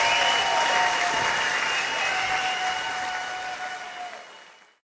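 Concert audience applauding, with a few steady high tones held over the clapping; the sound fades out about four and a half seconds in.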